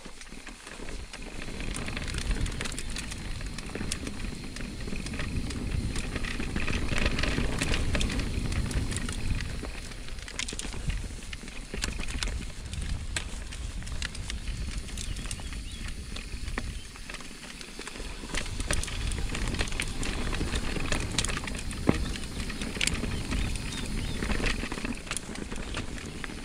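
Mountain bike being ridden, heard from a GoPro: wind noise on the microphone that swells and eases, over tyre noise and frequent small clicks and rattles from the bike.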